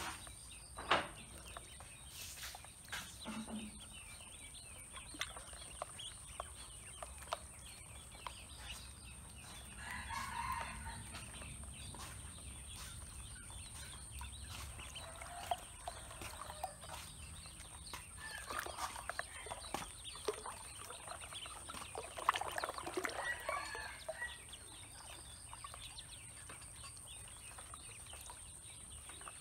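Chickens clucking and a rooster crowing a few times, over small splashes and clicks of ducklings paddling and dabbling in a plastic basin of water, with a steady high hiss behind.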